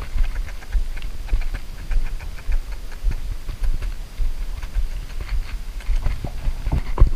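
Quick, faint, uneven ticking over a low rumble of handling, as ultralight fishing line and tackle are worked by hand close to the microphone.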